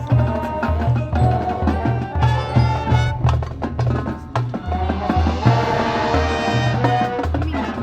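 Marching band playing: brass and woodwinds over a pulsing, rhythmic bass line, with drumline and auxiliary percussion strokes throughout and a cymbal wash that swells up about five seconds in.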